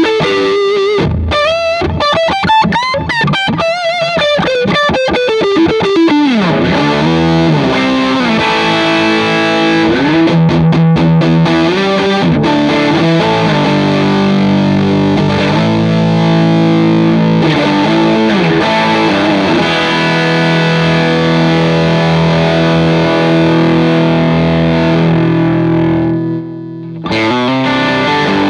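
Fender Telecaster through a D Sound Fisherman British-style overdrive into a Vox AC30 amp, playing an overdriven lead. A fast run with wide bends and vibrato over the first six seconds gives way to held notes and chords with slow bends, with a short dip in level about 26 seconds in.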